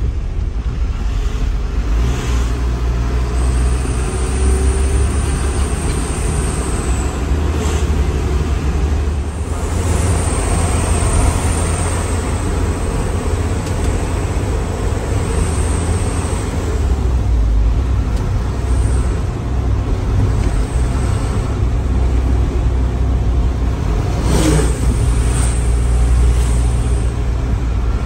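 Truck engine running under way, heard from inside the cab as a steady low rumble mixed with road noise. A short, sharp sound cuts in about three-quarters of the way through.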